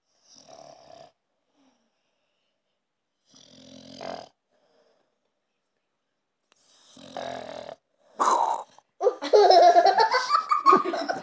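American Staffordshire terrier snoring in its sleep: three long snores about three seconds apart, each louder than the last. From about eight seconds in, a person laughs loudly.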